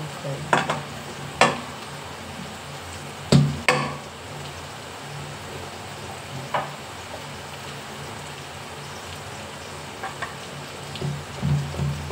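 Kitchen utensils clinking and knocking, several short sharp strikes spread apart, the loudest about three and a half seconds in, over a steady low hum.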